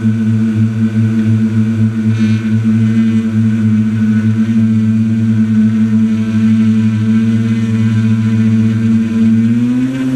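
Quadcopter's electric motors and propellers humming steadily while it hovers, heard close from its onboard camera. The pitch rises and falls back near the end as it starts to climb.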